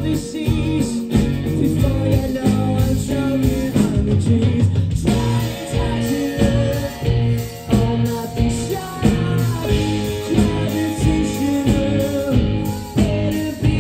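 Live rock band playing a song: a singer over electric bass, electric guitar and drums.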